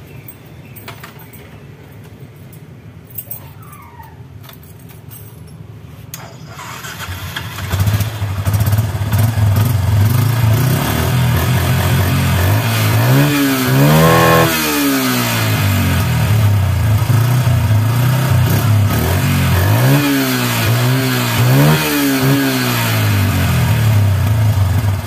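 Yamaha Byson's single-cylinder four-stroke engine starting about seven seconds in, then idling with three throttle blips that rise and fall in pitch, a big one near the middle and two smaller ones near the end. With the emission hose plugged it picks up without hesitating but still pops, which the mechanic puts down to the carburettor setting.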